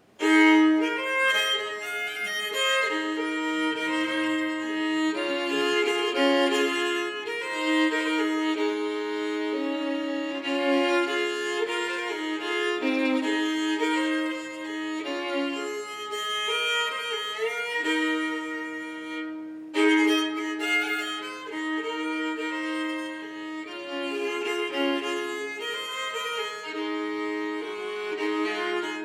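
Solo fiddle in sawmill tuning, the lower two strings raised a whole step, bowed in a melody over a long-held drone note. There is a brief break about two-thirds of the way in, then it comes back in loudly.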